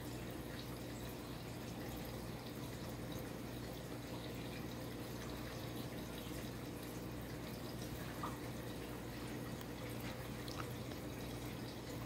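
Crown 52-inch ceiling fan running: a steady low motor hum under an even rush of air from the blades, with a couple of faint ticks late on.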